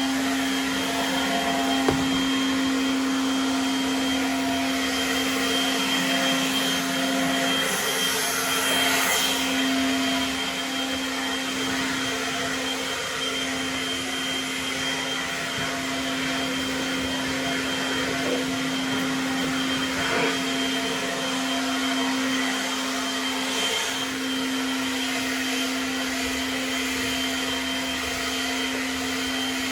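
A small electric motor running steadily at one pitch, with a continuous hum and a hiss above it. The hiss grows briefly brighter about eight seconds in.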